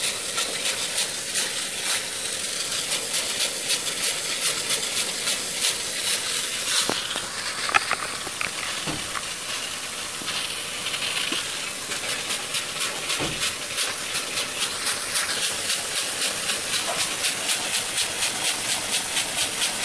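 Homemade single-cylinder steam engine, fed steam from a pressure cooker through a hose, hissing with a regular puff of exhaust as it turns. The puffs grow more even over the last few seconds as it slowly picks up speed, a sign that its homemade valve is working.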